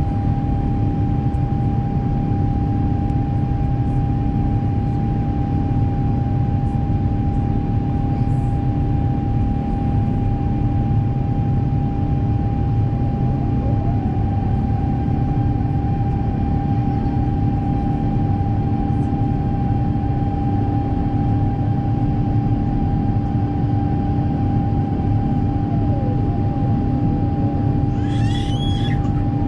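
Airbus A350-1000 cabin noise: a steady rush of engine and airflow noise with a constant hum. A brief higher-pitched sound comes in near the end.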